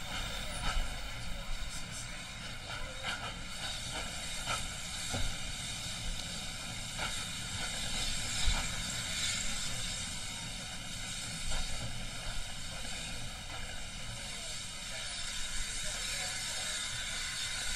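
Passenger train carriage running along the line, heard at an open window: a steady rush of wind and wheel noise, with light clicks and knocks from the wheels on the track now and then.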